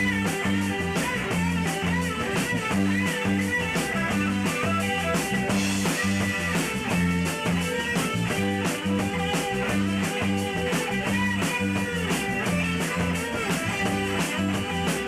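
A rock band playing live with no singing: guitar lines over bass and a drum kit keeping a steady beat.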